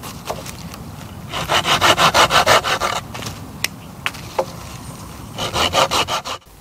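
Hand saw cutting through a dead branch in two quick runs of rapid back-and-forth strokes, one about a second and a half in and one near the end, with a few single knocks between.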